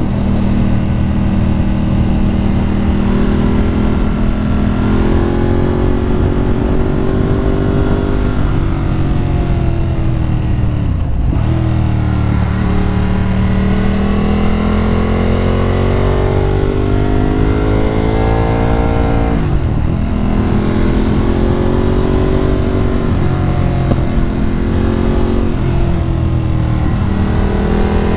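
Sport motorcycle engine being ridden hard through twisty corners, revs climbing and falling with throttle and gear changes. The revs drop sharply twice, about a third and two-thirds of the way through, then climb again.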